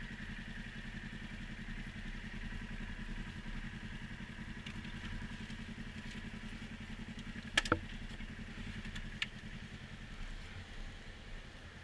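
ATV engine running steadily at an even pace, with a sharp knock about two-thirds of the way through and a fainter click shortly after.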